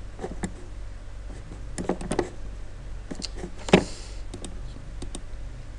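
Computer mouse clicks, short and scattered, several in quick pairs, with one louder click near four seconds, over a steady low electrical hum.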